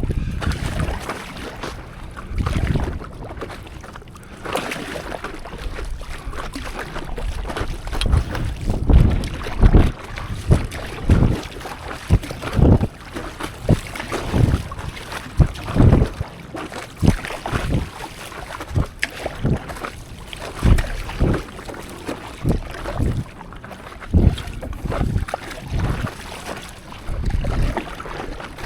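Water slapping and splashing against a stand-up paddleboard at sea, in irregular hits about once or twice a second, with wind buffeting the microphone.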